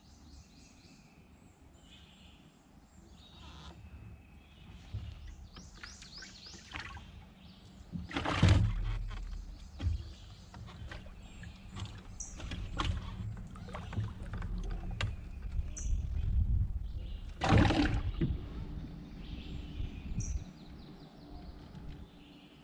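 Knocks, scrapes and thumps of gear being handled in a kayak, against a low rumble, with two louder thumps about eight and seventeen seconds in. A few short bird chirps are heard now and then.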